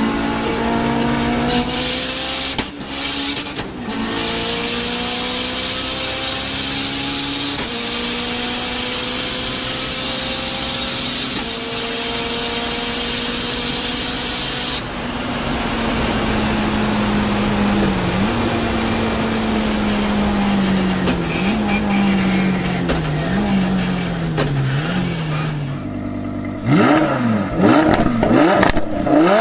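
Performance car engine pulling hard up through the gears, its pitch climbing and dropping at each upshift, then running on a lower, wavering note. Near the end it is revved in quick sharp blips up and down.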